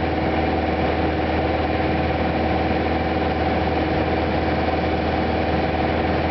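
Steady drone of a Cessna Cardinal's single piston engine and propeller in flight, heard from inside the cabin: an even, unchanging hum with a low throb underneath.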